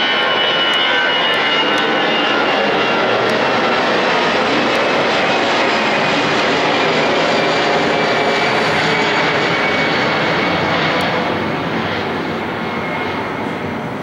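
Airbus A320 jet airliner passing overhead: steady, loud jet engine noise with a high whine, dying away over the last few seconds.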